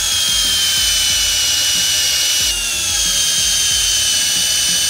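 Cordless drill running steadily as its bit bores into the metal impeller of a 1959 Cadillac water pump. Its whine sags slightly in pitch under load and shifts briefly about halfway through.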